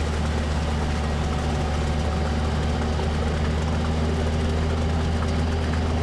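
All-terrain vehicle's engine running at a steady low drone as it drives through a river.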